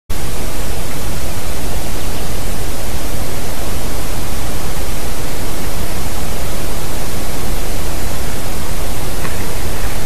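Loud, steady rushing hiss on the nest camera's microphone, spread evenly from a deep rumble up to a high hiss, with no bird calls standing out.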